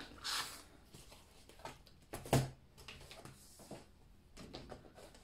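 Handling noise at a tabletop: a brief rustle, scattered small clicks and taps, and one sharper knock about two seconds in, like an object being set down.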